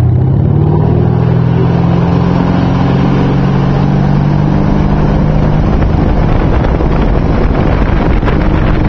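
Tow boat's engine running hard as it pulls a barefoot water skier up. The engine's steady hum gives way about five seconds in to the rush of spray and wind on the microphone.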